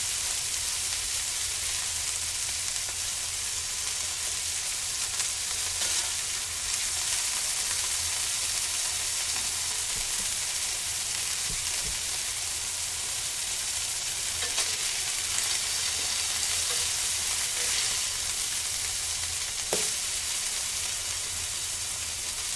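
Meat sizzling steadily over a charcoal grill, with a few light clicks.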